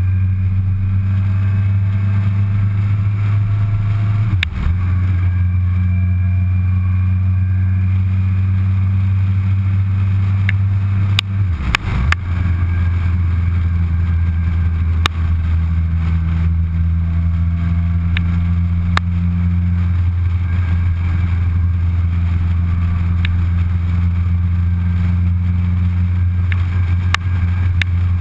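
Suzuki Hayabusa's inline-four engine running at a steady cruise, with wind rush on the bike. The engine note dips briefly twice, at about four and twelve seconds in.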